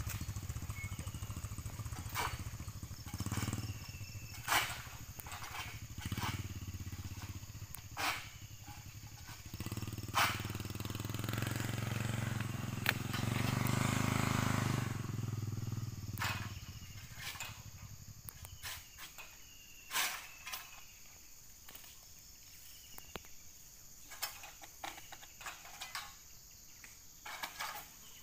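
A motorcycle engine running, louder in the middle, then fading out about two-thirds through. Sharp clicks and knocks are scattered throughout.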